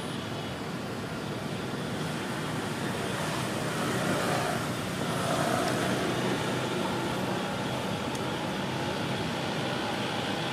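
Steady road-traffic noise, swelling for a couple of seconds about four to six seconds in.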